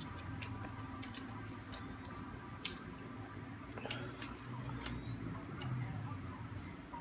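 A person eating with their fingers: scattered small clicks and wet smacks at irregular intervals, over a steady low hum.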